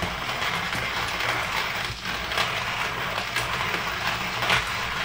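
Hario Slim hand coffee mill's ceramic conical burrs crushing whole coffee beans as the handle is cranked: a continuous gritty crunching and crackling. The grinder is set six clicks out from fully closed, a coarse setting.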